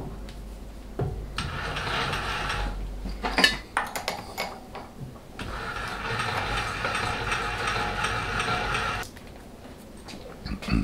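A small workshop machine's motor runs twice, for about two seconds and then for about three and a half seconds, with a sharp metallic clack between the runs.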